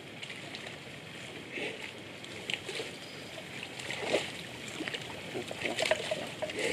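Water buffalo wallowing in a mud puddle, rolling onto its side and back: irregular sloshing and squelching of mud and water, loudest about four seconds in and again near the end.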